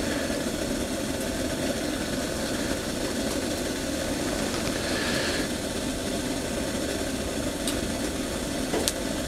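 Steady low mechanical hum, with a few faint clicks near the end.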